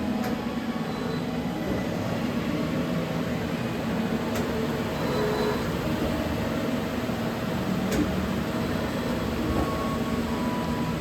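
Biglia B 1200 CNC lathe running with a steady mechanical hum, with three short clicks about four seconds apart.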